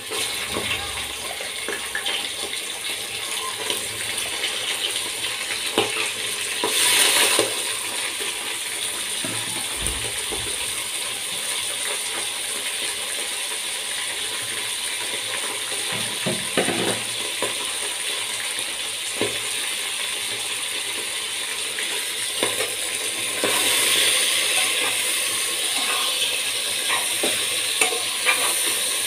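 Mutton liver pieces sizzling in hot oil and fried onions in an aluminium pressure cooker, with a steel spoon scraping and clinking against the pot as they are stirred. The sizzle swells briefly about seven seconds in and again for a couple of seconds near the end.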